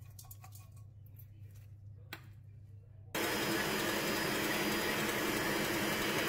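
Faint ticks and a click as jaggery is tipped into a steel mixing bowl. Then a stand mixer starts abruptly and runs loud and steady, its motor and wire whisk beating egg whites with jaggery.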